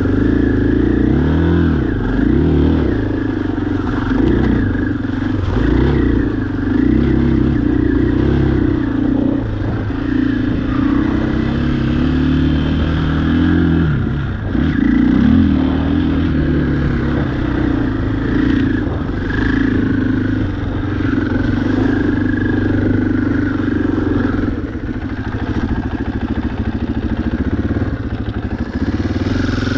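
Off-road vehicle engine running under way while ridden, its pitch rising and falling again and again as the throttle is worked on and off.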